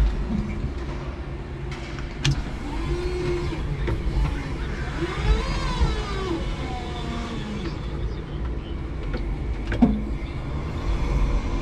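5-ton electric forklift truck heard from inside its cab: its electric motors whine, rising and falling in pitch over and over, above a steady low rumble. Two sharp knocks come about two seconds in and near the end.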